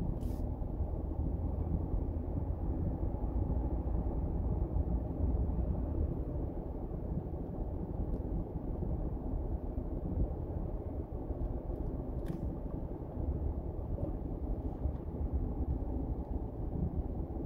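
Steady low rumble of a car driving slowly, heard from inside the cabin: engine and tyre noise on the road.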